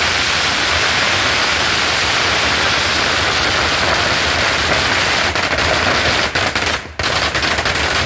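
Strings of firecrackers going off in a dense, continuous crackle that thins into separate cracks with short gaps over the last few seconds.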